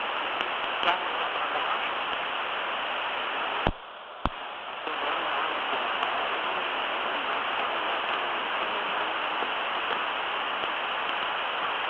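Steady hiss of cockpit background noise on the Legacy 600's cockpit voice recording. About four seconds in, a click cuts the hiss down for about a second, with a second click in the middle of the dip, before the hiss returns.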